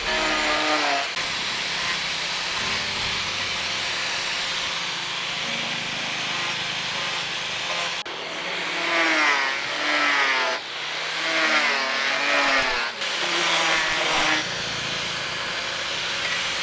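Steady rasping scrape of hand abrasive work on the knife, with background music underneath.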